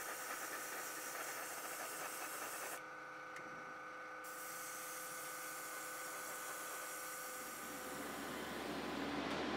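Iwata Eclipse HP-CS gravity-feed airbrush spraying paint: a steady hiss of air and paint, with a steady machine whine underneath. The hiss breaks off for about a second and a half near three seconds in, then resumes. Near the end it gives way to a lower hum.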